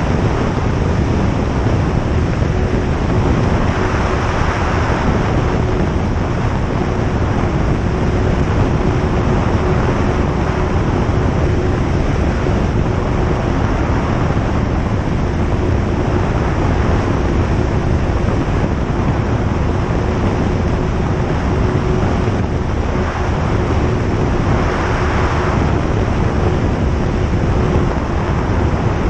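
Inside the cabin of a single-engine light aircraft in flight: the piston engine and propeller run steadily under a loud, even drone of engine and airflow noise, with one steady hum and a few brief swells of airflow noise.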